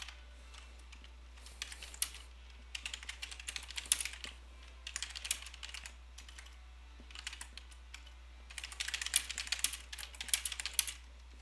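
Typing on a computer keyboard in several quick runs of keystrokes with short pauses between them, over a steady low hum.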